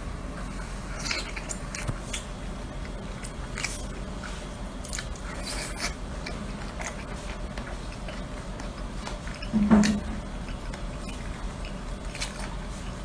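Close-up eating sounds of seafood: chewing and squelching with scattered small clicks and scrapes, and one brief louder sound about ten seconds in.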